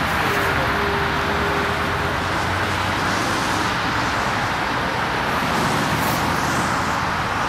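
Steady road noise of motorway traffic, an even rushing hiss, with a faint held tone in the first couple of seconds.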